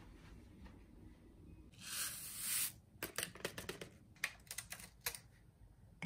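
A short rustle of a stick packet being handled, then about a second later a run of light, irregular clicks and taps as the packet is shaken out into a ceramic tumbler.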